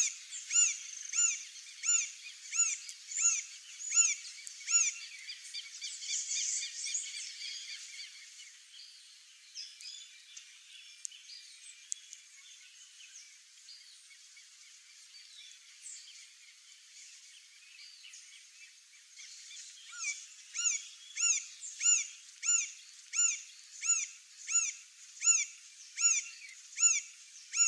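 Green-barred woodpecker calling a long series of evenly spaced, ringing notes, about one and a half a second. The series stops around 7 s in, leaving faint scattered bird chirps, and starts again about 20 s in.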